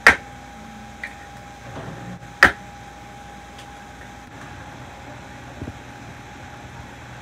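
Eggs being cracked by hand, two sharp taps about two seconds apart and a lighter one between them, over a steady faint hum.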